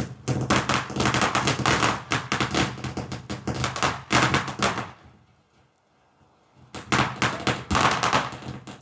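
Consumer firework going off with rapid runs of crackling bangs. It stops about five seconds in, then gives a final short burst near the end.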